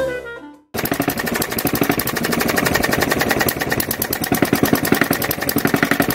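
The tail of a saxophone jingle cuts off, and about a second in a model compression-ignition diesel stationary engine with mechanical fuel injection starts sounding: a fast, even train of sharp knocks, several a second. This is the red first-release version, run while its injector timing and control still needed work.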